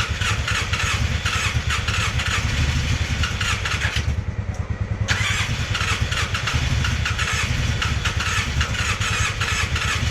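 Polaris Sportsman 600 ATV engine being cranked on its electric starter in a rapid, steady chug, trying to catch but not running cleanly: the engine has almost no compression. The higher starter chatter drops out for about a second near the middle while the low chugging goes on.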